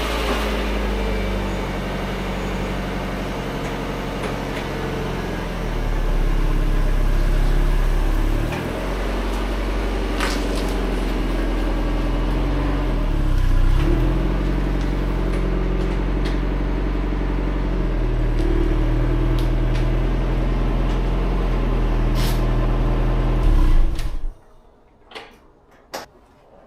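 Mazda Miata's four-cylinder engine running as the car is moved, its pitch and level shifting a few times, then switched off suddenly about 24 seconds in. A few short knocks follow.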